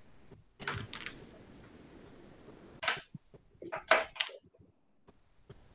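A few short, faint rustling and knocking noises: about a second in, near three seconds, and a quick cluster near four seconds.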